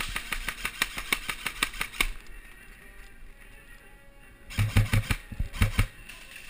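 Airsoft gun firing on full auto: a rattling burst of about ten shots a second lasting about two seconds, then, after a pause, a second louder burst with heavier thumps starting about four and a half seconds in.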